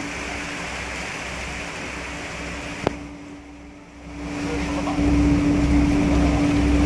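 Speed-boat ferry engine running with a steady drone and low rumble, mixed with rushing water and wind. A sharp click comes about 3 seconds in. The sound dips for about a second, then swells back up.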